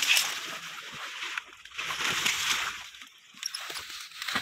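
Water sloshing and splashing as people wade through a shallow pond thick with water hyacinth, in uneven surges, the loudest at the very start and again about two seconds in.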